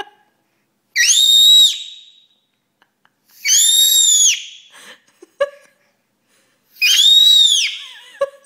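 A baby squealing: three very high-pitched squeals, each about a second long and rising then falling in pitch, a couple of seconds apart.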